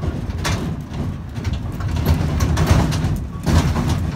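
Small park train running, heard from on board: a steady low rumble with rattles and knocks that grow louder in the second half.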